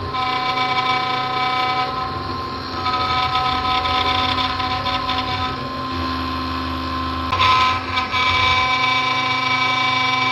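CNC router spindle running at speed with a steady high-pitched whine while its bit cuts an electric guitar body, the rough cutting noise swelling and easing as the bit moves through the wood, with a brief louder surge about seven and a half seconds in.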